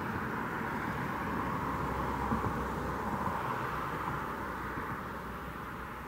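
Sentry 7V8 outdoor warning siren sounding a steady tone, growing quieter over the last couple of seconds.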